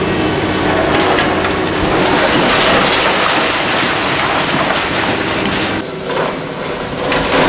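A demolition excavator breaking up a concrete building: a loud, continuous crunching and rattling of breaking concrete and falling rubble over the machine's running engine. It drops briefly near the end, then comes back up.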